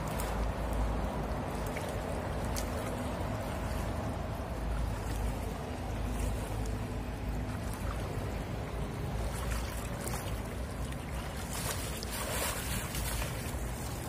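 Shallow stream water sloshing and splashing as a person wades and sweeps a long-handled hand net through it to scoop fish, with a few louder splashes near the end.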